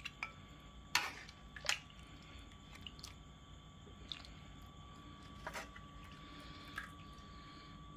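A ladle knocking and clinking against the pot and bowl as chicken-feet soup is scooped and poured, with soft liquid sloshing. The two sharpest knocks come about a second in and just before two seconds in, with lighter clinks after.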